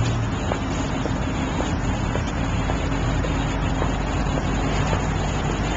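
Steady outdoor road-traffic noise from passing cars, mixed with wind rumbling on a handheld camera's microphone. Faint footsteps on asphalt tick about twice a second.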